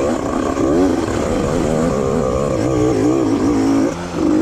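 Small 85cc two-stroke dirt bike engine running loud, its pitch rising and falling as the throttle is worked, dipping briefly near the end.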